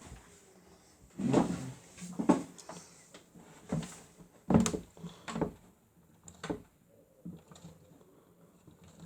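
Miele W1 toy washing machine knocking and rattling in uneven bursts with a low hum, about six clunks in the first seven seconds, then fading to faint rattles.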